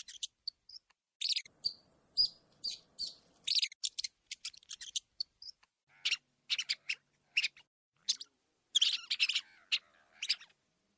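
Rats squeaking: a fast, irregular string of short, high-pitched squeaks, some bunched into quick clusters.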